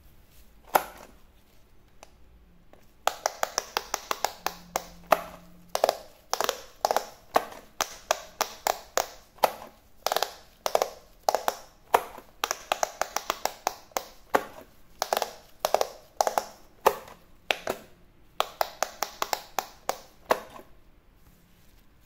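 Silicone bubble buttons of an electric speed-push pop-it game being pressed in quick succession, each giving a short soft pop or click, about two to three a second. The run of presses starts about three seconds in and stops near the end.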